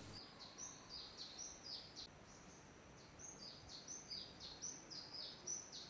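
Faint bird calls: a series of short, high chirps, each falling in pitch, repeated about two or three a second, with a pause of about a second midway.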